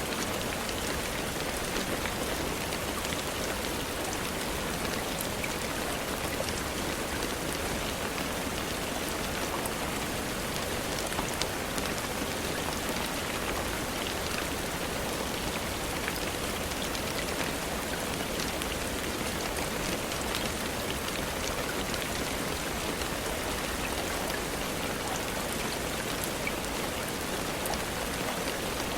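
Steady rain falling, with a dense even hiss and many small drop ticks on a surface.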